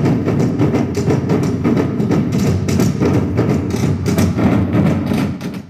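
Music with a busy percussive beat, fading out near the end.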